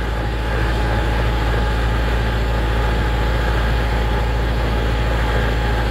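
Kubota M6040 narrow tractor's diesel engine running steadily while the tractor drives along.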